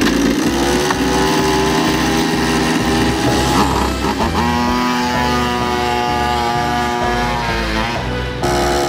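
Small two-stroke pocket-bike engine fitted to a motorized Bobby Car, running and being throttled as it rides off, its pitch rising and falling with the throttle. It switches abruptly to a steadier note near the end.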